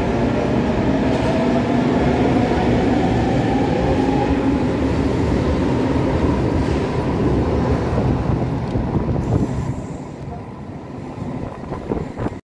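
Regional train moving along a platform track, a loud rumble of running gear with a whine that rises in pitch over the first four seconds. The sound drops off noticeably about ten seconds in.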